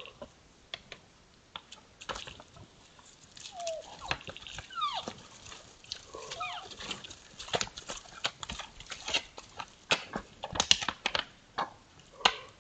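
Two sambar deer stags sparring: several short, high whining calls that fall in pitch, and many sharp clicks and knocks of antlers striking together, thickest in the second half.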